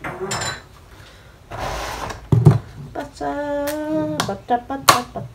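Kitchen handling sounds: a rustle, a knock about two and a half seconds in, and a sharp click near the end. In between, a woman's voice holds a couple of sung notes.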